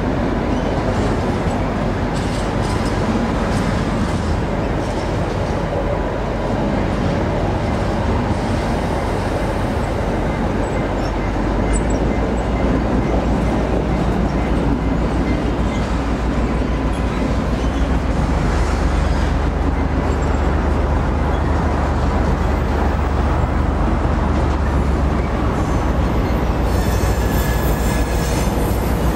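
Diesel-electric T44 shunting locomotive running under load with freight wagons rolling behind it, a steady low rumble that grows louder about twelve seconds in.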